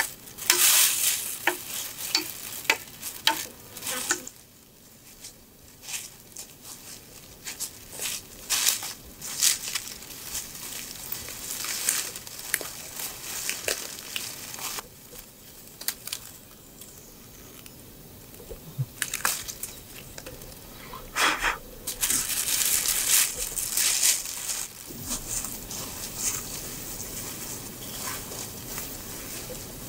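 Irregular crackling and rustling of footsteps through dry leaf litter and forest undergrowth, with a denser spell of rustling about three quarters of the way through.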